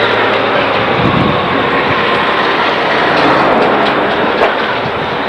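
Steady road traffic noise, with a car driving close past near the end and a single sharp click shortly after.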